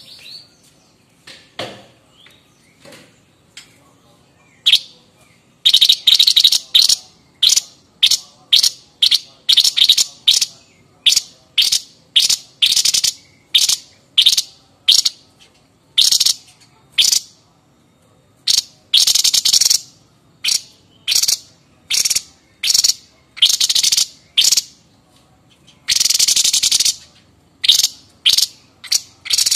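White-breasted babbler (Stachyris grammiceps) giving its harsh 'nyerecet' chattering call: a long run of short rasping bursts, about two a second, a few drawn out to about a second, after a quiet first few seconds.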